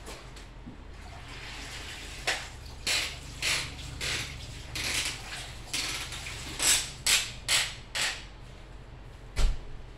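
String mop being worked and wrung over a plastic mop bucket: about ten short creaking swishes over several seconds, with water running back into the bucket, then a single sharp knock near the end.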